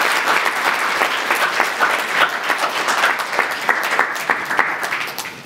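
A small audience applauding, many hands clapping at once, thinning out near the end.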